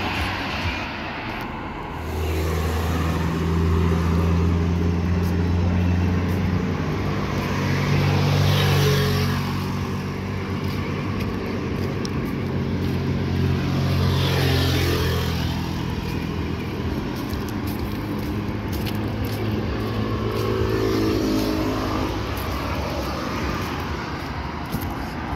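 Street traffic: engines running with a low rumble, and motor vehicles passing by. Two pass most clearly, about a third of the way in and just past halfway.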